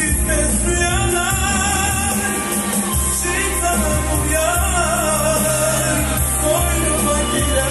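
1990s Turkish pop song playing back from a cassette on a hi-fi system, with a steady bass line under the melody.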